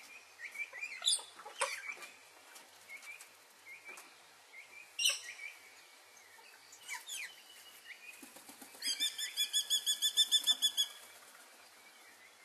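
Birds calling: scattered short high chirps and whistles, then about two-thirds of the way through a fast run of high, evenly repeated notes, about seven a second, lasting about two seconds.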